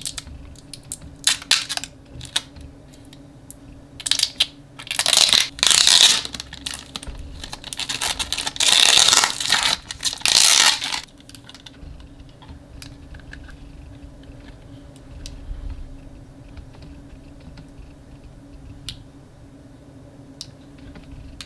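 A thin plastic bag crinkling loudly in bursts for several seconds as it is pulled off a pair of plastic glasses. Before it come a few sharp clicks of handling, and after it the quieter taps of the plastic frame being turned in the hands.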